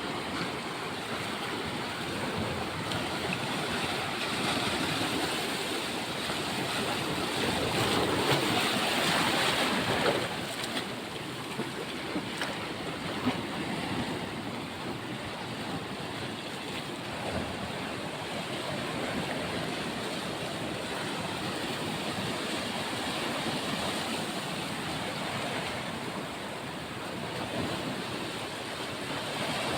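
Sea surf washing onto the shore, a steady wash of waves that swells louder about eight to ten seconds in, with smaller surges later.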